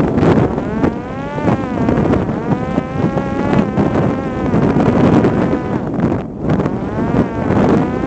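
Parrot Disco's electric pusher-propeller motor whining, its pitch rising and falling repeatedly as the throttle changes, over heavy wind buffeting on the microphone. The motor briefly drops out about six seconds in.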